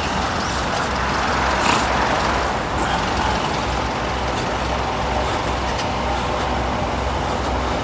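Steady road-traffic noise with the low engine rumble of heavy vehicles such as buses or trucks.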